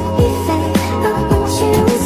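Background music with a steady beat: a kick drum hits about twice a second under sustained pitched notes.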